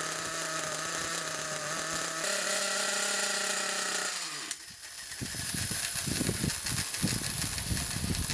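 The nitro glow engine of an HPI Trophy 4.6 truggy idles steadily, its pitch stepping up slightly about two seconds in. About four and a half seconds in it dies abruptly as the exhaust is blocked with a finger to stop it. Uneven low rumbling noise follows.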